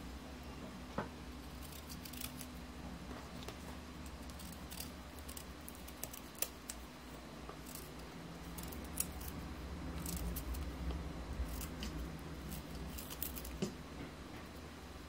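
Kitchen knife peeling and cutting a piece of fresh ginger root by hand: scattered small scrapes and cuts, faint, over a low steady hum.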